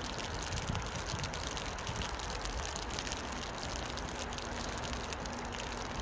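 Steady outdoor wash of small river waves lapping against a rocky bank, over a low rumble.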